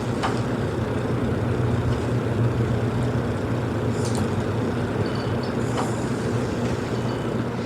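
Ceiling fan running steadily: an electric motor hum with a rush of moving air.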